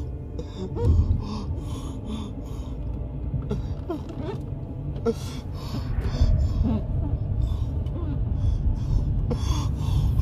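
A frightened person's quick, gasping breaths, over the steady low rumble of a moving car's cabin.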